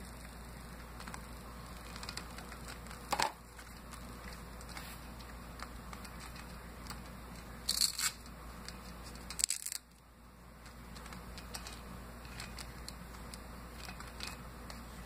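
Faint room hiss with scattered soft rustles and clicks of a doll and its plastic toy gymnastics bar being handled, three louder brief rustling knocks spread through the middle.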